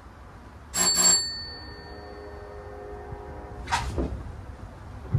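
A signal bell struck once, sharp and high, its tone ringing on for a few seconds, then a clunk and a low rumble about three seconds later as the funicular cable car starts to move.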